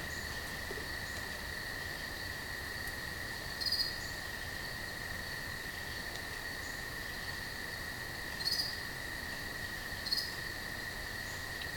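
A cricket trilling steadily and without a break. Three brief scrapes stand out over it, about four, eight and a half and ten seconds in.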